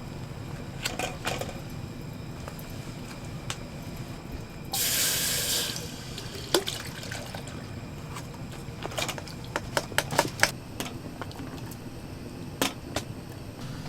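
A short rush of running or pouring water, about a second long, some five seconds in, with scattered clicks and knocks of things being handled over a low steady rumble.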